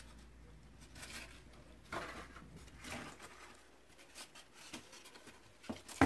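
Faint rustling and light taps of cardboard egg flats being lifted and handled in a plastic bin, a few soft scuffs about a second apart.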